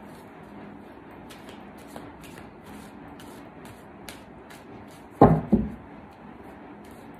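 A deck of tarot cards being shuffled by hand: a steady run of soft, crisp card flicks, with two dull thumps in quick succession about five seconds in.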